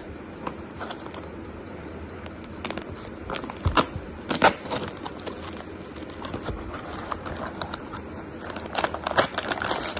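A parcel's packaging being handled and opened: irregular crinkling, rustling and tearing, with the sharpest rustles about four seconds in and again near the end.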